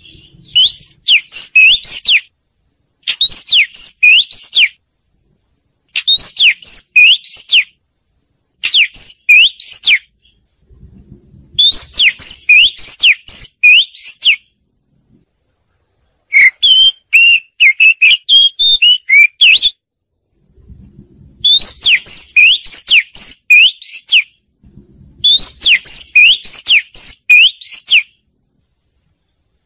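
Oriental magpie-robin singing: loud phrases of rapid whistled notes sweeping up and down, each phrase a second or two long, with short silent gaps between phrases.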